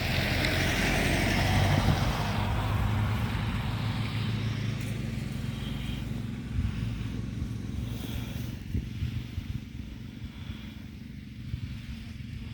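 Street traffic: a motor vehicle passing, loudest in the first two seconds and then fading away, over a steady low rumble.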